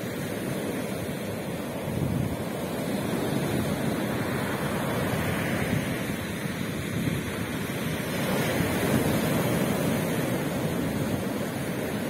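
Strong sea waves breaking close in and washing up the beach: a continuous rush of surf that swells about two seconds in and again around eight seconds in.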